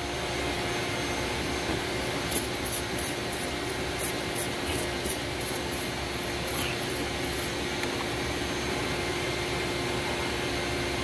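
Hand trigger spray bottle squirting soapy water onto an exhaust pipe: a run of about fourteen quick squirts, roughly three a second, over some five seconds. Under it runs the steady hum of an air pump blowing into the exhaust system to pressurise it for a leak test.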